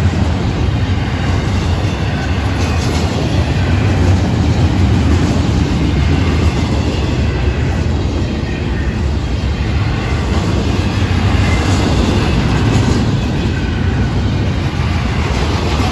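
Florida East Coast intermodal freight train passing close by: the steady, loud low rumble of the double-stack well cars' steel wheels rolling over the rails.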